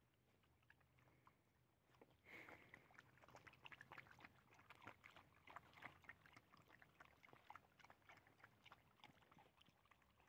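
Dogs eating from a shared tray: faint, quick, irregular wet licking and chewing clicks, starting about two seconds in.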